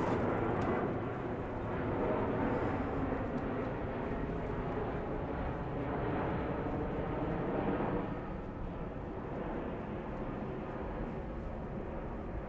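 Steady outdoor rumble of road traffic heard while cycling, easing a little about eight seconds in.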